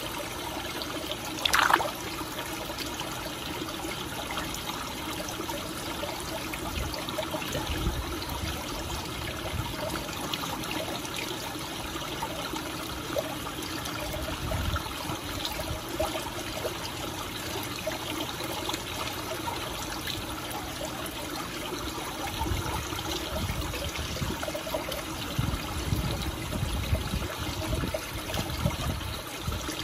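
Pond water trickling steadily, with small splashes from fancy goldfish crowding at the surface. A brief high squeak about a second and a half in is the loudest moment, and low rumbles come and go in the second half.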